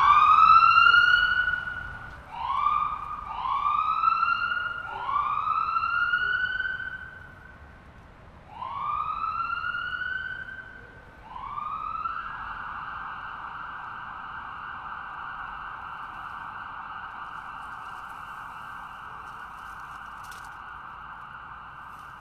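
Emergency vehicle siren, used here as the sound of a cartoon ambulance. It gives about six rising wails, each sweeping up in pitch and then breaking off. About halfway through it settles into one steady held tone that slowly fades.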